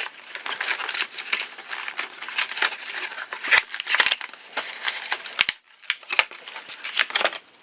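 Stiff plastic retail packaging crackling and clicking as a small folding knife is pushed and pried out of it, a rapid, irregular run of sharp crinkles with a brief pause a little past halfway.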